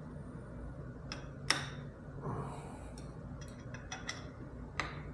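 Scattered light clicks and taps of hand tools and small metal parts as a phone-mount bracket is fitted and tightened, about half a dozen in all, the sharpest about a second and a half in and near the end.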